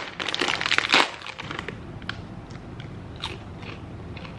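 Crisp spicy potato chips being bitten and chewed, with the foil chip bag rustling; the densest crackling comes in the first second, then smaller scattered crunches.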